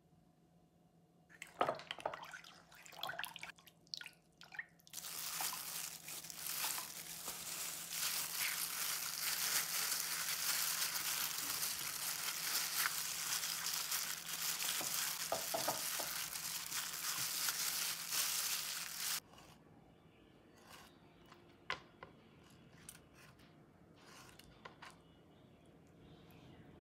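Gloved hand washing raw chicken wings in a glass bowl of floured water: steady sloshing and rubbing with the crinkle of a plastic glove, which stops suddenly after about fourteen seconds. A few short sharp knocks come in the first seconds, and faint handling sounds follow.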